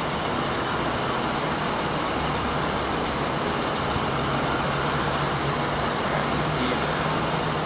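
Steady outdoor rushing noise with a faint low hum underneath, even throughout.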